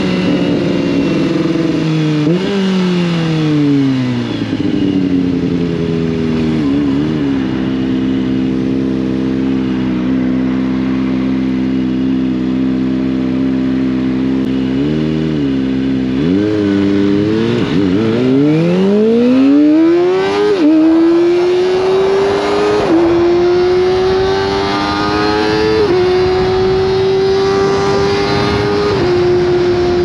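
Kawasaki ZX-25R's inline-four engine through an Akrapovic exhaust. It slows down with a downshift blip, idles steadily with a few short throttle blips, then accelerates away, with quick-shifted upshifts every two to three seconds.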